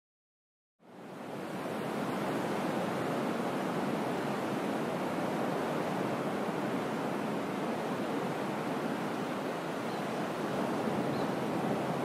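Recorded ocean surf on a beach, played as an alarm clock's wake-up sound. It starts from silence just under a second in, swells over about a second, and then washes on steadily.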